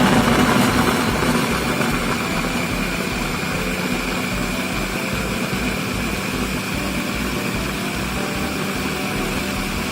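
Electric blender running, blending chopped young papaya with water. Loudest for the first couple of seconds, then settling into a steady hum and whine.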